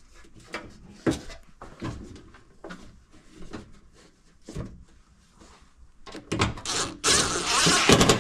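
Washing machine parts being handled during reassembly: scattered knocks and clicks, then a loud scraping noise lasting about a second near the end.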